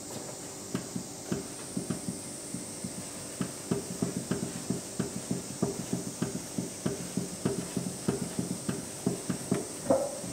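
Hands working moist buckwheat flour around a large kneading bowl: fingers rubbing through the crumbly flour and tapping on the bowl's surface in short, soft strokes, a few a second, getting busier after a few seconds. This is the water-spreading stage of making soba dough, done after the second addition of water.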